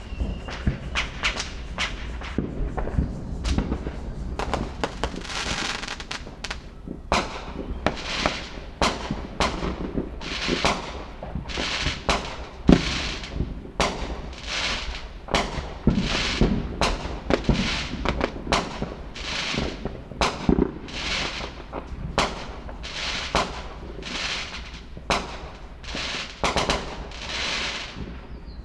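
Fireworks going off: a rapid run of sharp bangs over a low rumble, then from about five seconds in a steady series of crackling bursts, each about half a second long, coming a little more than once a second.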